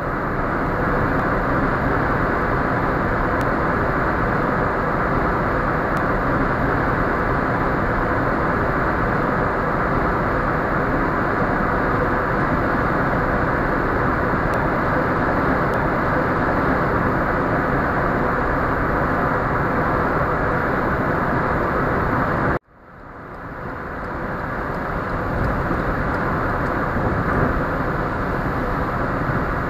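Steady road noise inside a moving car at highway speed. It cuts out abruptly about two-thirds of the way through, then fades back up over a few seconds.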